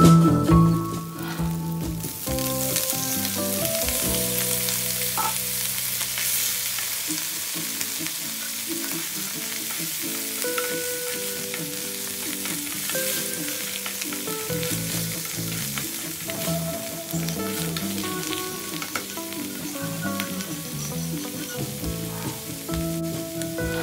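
Sliced onions and mushrooms sizzling as they sauté in a nonstick pan, with a spatula stirring and scraping them around. Faint background music runs underneath.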